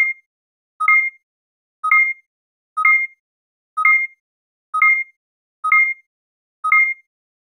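Electronic countdown beeps, one short beep about every second, each sounding two pitches together, ticking off an on-screen numbered countdown.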